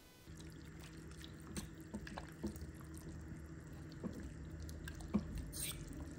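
A metal utensil stirring shredded chicken in a thick, wet yogurt-and-buffalo-sauce mixture in a slow cooker's crock. It makes wet squelching with irregular clicks of metal against the crock, over a steady low hum.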